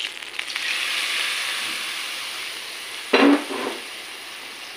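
Hot oil tempering of cumin, whole red chillies and curry leaves poured onto a pot of kadhi, sizzling and spitting as it hits the curry, then fading away over a few seconds. A brief, louder sound cuts in about three seconds in.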